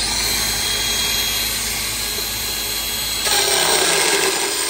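Makita cordless flush cutter's small grinding wheel running and cutting through a piece about one inch thick: a steady high whine with grinding noise, growing louder and rougher about three seconds in.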